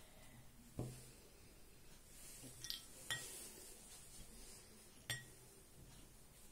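Small plastic food-colouring caps and a dropper bottle set down on a ceramic plate: a dull knock about a second in, then a few light clicks and clinks.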